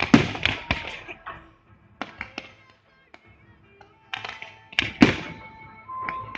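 Fireworks bursting overhead: volleys of sharp bangs and crackles, a dense cluster at the start, a few more about two seconds in, and another heavy volley from about four seconds in.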